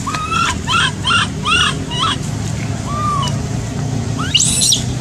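Baby macaque crying in short, high, arched coos: a quick run of about five, a single one, then a higher squeal near the end, over a steady low hum.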